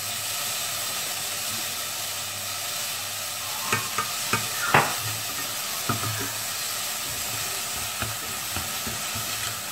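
Chopped chicken meat and giblets sizzling as they stir-fry in a stainless steel pot, a steady hiss. Wooden chopsticks knock and scrape against the pot a few times between about three and a half and six seconds in, the loudest near the middle.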